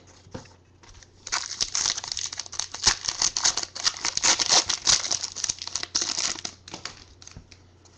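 Foil wrapper of a 2012 Elite football card pack being torn open and crinkled by hand: a dense crackling run starting just over a second in and lasting about five seconds, with a few scattered crinkles around it.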